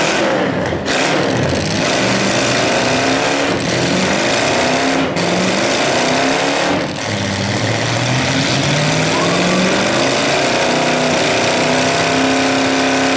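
Demolition derby cars' engines revving hard with their pitch repeatedly rising and falling, as the cars push against each other and spin their wheels in the dirt.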